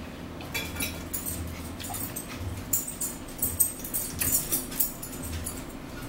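Close-up eating sounds: repeated wet chewing and lip smacks, mixed with forks clinking and scraping on plates, over a steady low hum.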